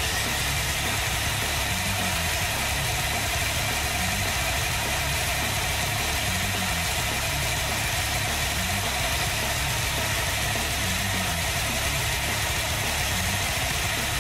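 RC buggy running on a roller test rig: a steady mechanical whir with a high whine and an uneven low rumble as the wheels and suspension work over the spinning rollers.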